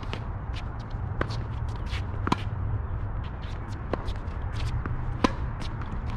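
Tennis rally: sharp pops of the ball being struck by racquets and bouncing on the court, about one every second or so, with quick scuffs of tennis shoes moving on the court over a steady low rumble.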